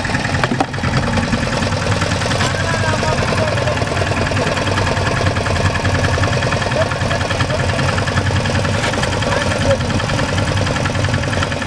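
A small fishing boat's engine running steadily.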